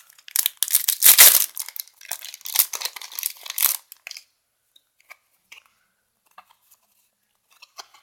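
Foil Yu-Gi-Oh booster pack being torn open with a crinkly rip, loudest about a second in, over the first four seconds; after that only faint scattered rustles and ticks of the wrapper and cards being handled.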